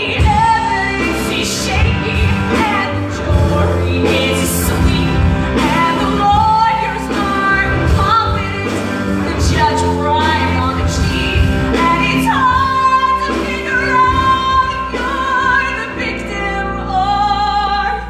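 A woman singing a musical-theatre song live over instrumental accompaniment, holding long notes with vibrato, several held notes in the second half.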